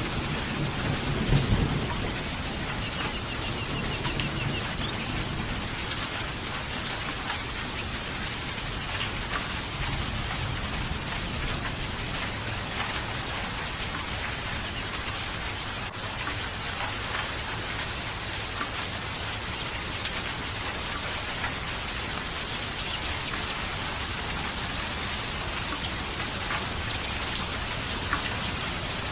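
Steady, even rain falling, with a low thunder rumble dying away in the first couple of seconds and a faint rumble lingering on beneath the rain.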